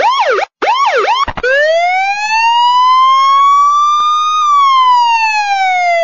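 Electronic siren sounding a few quick up-and-down yelps, then switching about a second and a half in to a slow wail that rises for about three seconds and then falls steadily.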